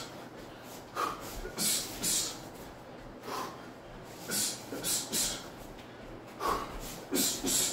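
Sharp, forceful exhales with each punch while shadowboxing, coming in irregular quick clusters of one to three, about ten in all.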